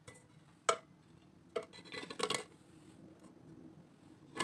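A few short, light knocks and clinks against an aluminium pot, irregularly spaced, as fried langcha sweets are put one by one into sugar syrup.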